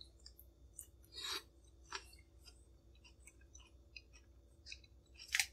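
A person chewing a mouthful of lettuce and cauliflower salad with the mouth closed: quiet, scattered soft crunches and clicks. Near the end, a louder brief scrape of a fork in the takeout container.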